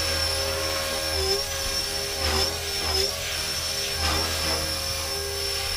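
Blade 330S electric RC helicopter hovering, its rotor head spinning at 70% head speed in stunt 1 mode. The brushless motor and gears give a steady high whine over a lower rotor hum, and the lower tones waver slightly as it holds position.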